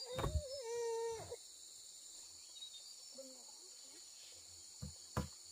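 Steady high chirring of insects, broken near the start by a single pitched call about a second long and, near the end, by two sharp knocks.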